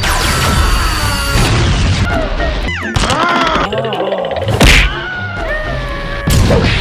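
Cartoon action soundtrack: music mixed with fight sound effects, with gliding tones and a sharp impact about four and a half seconds in.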